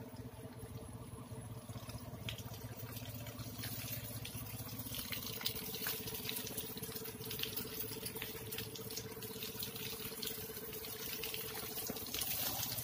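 Water from a garden hose spraying onto leafy hanging-basket plants: a steady hiss of running water with many small drops pattering on the leaves, over a faint steady hum.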